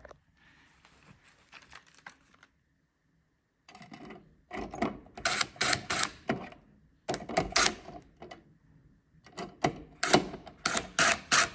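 Screwdriver driving the screws that fasten a screwless switch plate's mounting plate to a light switch: three bunches of sharp clicking and scraping, the last starting about nine seconds in.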